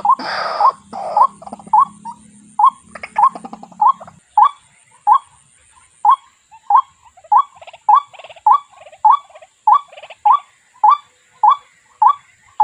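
White-breasted waterhen calling: one short rising note repeated steadily, nearly twice a second. The calls are harsher and louder at the start, and a low hum underneath stops about four seconds in.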